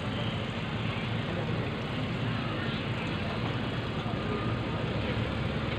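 Steady low rumble of an open jeep's engine as the jeep moves slowly at walking pace, mixed with outdoor crowd murmur and wind on the microphone.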